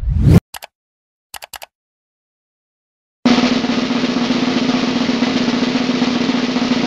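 Cartoon sound effects: a rising whoosh that ends just after the start and a few quick clicks, then, about three seconds in, a steady snare drum roll that builds suspense before the answer is revealed.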